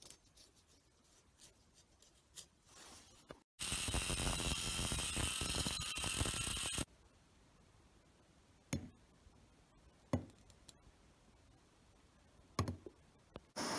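Hand-held electric angle grinder with a cutoff disc cutting through an aluminum tube for about three seconds, then stopping abruptly. A few sharp clicks follow.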